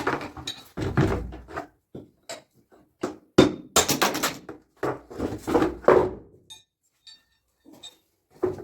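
A series of irregular knocks and thuds, some with a low, heavy body, that start abruptly and come thickest in the middle before thinning out.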